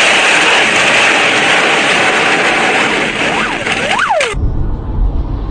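Loud, steady grinding hiss of metal scraping along the road as a crashed car slides, showering sparks, with two short squeals near the end. It cuts off suddenly a little after four seconds in, replaced by the low rumble of a car driving on a highway.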